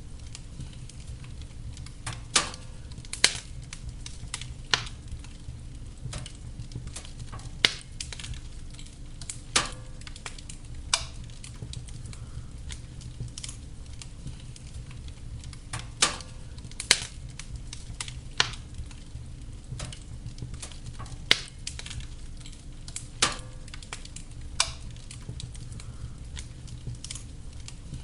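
Wood fire burning in a fireplace. Irregular sharp crackles and pops come every second or two over a steady low rumble of the flames.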